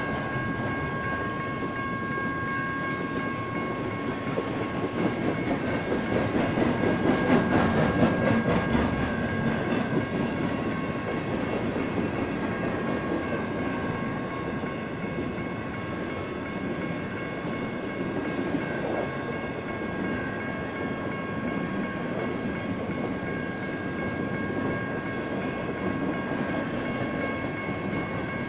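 BNSF intermodal freight train's loaded well cars rolling slowly through a grade crossing, wheels clattering on the rails, loudest with a burst of clatter a few seconds in. The crossing's General Signals electronic bells ring steadily over it.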